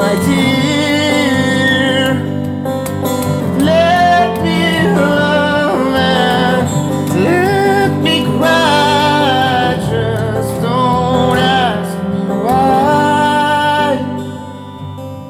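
A man singing a slow song to guitar accompaniment, holding long notes with vibrato. The music fades about a second before the end.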